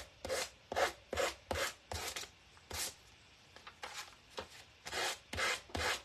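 A small sanding block rubbed along the edge of a sheet of printed paper in quick scratchy strokes, about two a second, with a short pause near the middle.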